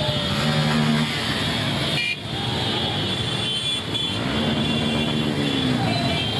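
A dense crowd of motorcycle engines running together, with engines revving up and down twice and horns tooting over the din.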